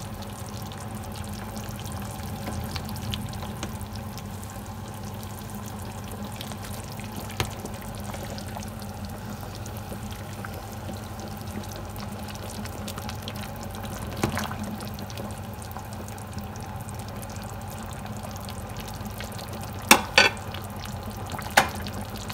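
A stainless steel pot of sinigang na baboy simmering on the stove, bubbling and crackling steadily over a low hum. A few sharp knocks break in, the loudest near the end.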